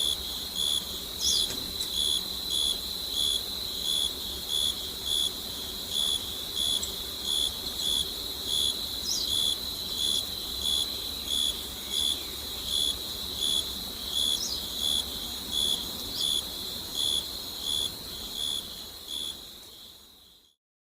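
Night insect chorus: a steady high trill with a regular chirp about twice a second over it, and a few brief higher chirps now and then. It fades out near the end.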